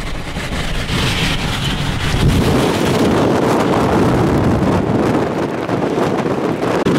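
Strong wind buffeting the microphone, growing louder over the first couple of seconds and then staying loud.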